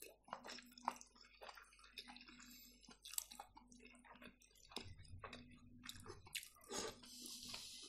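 Faint chewing with many soft, irregular wet mouth clicks from someone eating cabbage rolls in sauce, and a brief hiss about seven seconds in.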